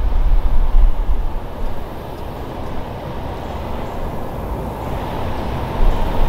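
Wind buffeting the microphone: a low, unpitched rumble that eases off in the middle and picks up again near the end.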